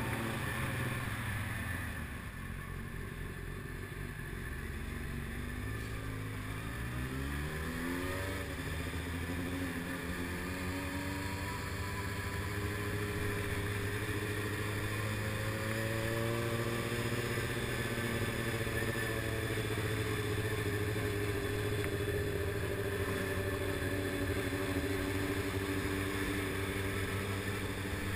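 Motorcycle engine running while riding at low speed through town, its pitch rising as it accelerates about seven to nine seconds in and again more gently past the middle, otherwise steady.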